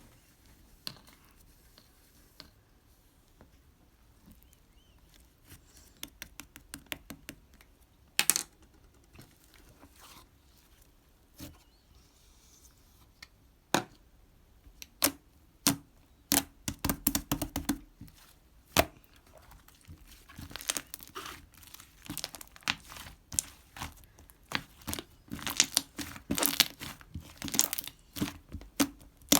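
Slime being squeezed, pressed and stretched by hand, giving sharp sticky clicks and pops. They are scattered at first and come thick and fast in clusters in the second half.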